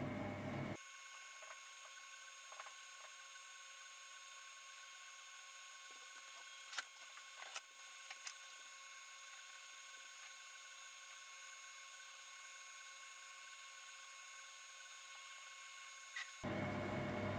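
Silvercrest Monsieur Cuisine Edition Plus food processor's motor running at its lowest speed while heating water: a faint, steady high-pitched whine made of several even tones. A few faint clicks come about seven to eight seconds in.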